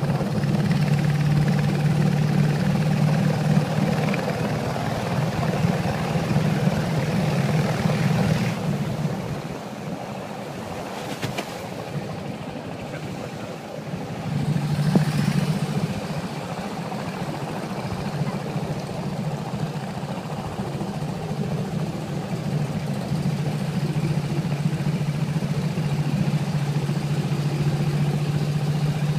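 Engine of a long wooden boat running steadily under way, with a low steady drone. The engine note drops away for a few seconds about a third of the way in, then comes back up to its earlier level.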